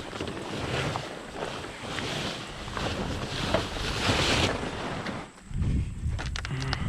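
Rustling and crackling of a plastic cover being pulled off a grain pit, followed by a few low thumps about five and a half seconds in.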